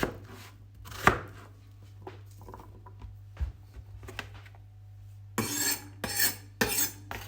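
A kitchen knife chopping vegetables on a cutting board in a few separate strokes, the loudest about a second in. Near the end comes a run of short, rough scraping clatters.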